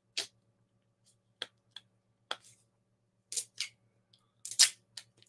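About eight short, sharp clicks and ticks at irregular intervals, a couple of them slightly longer and scratchier, over a faint steady hum.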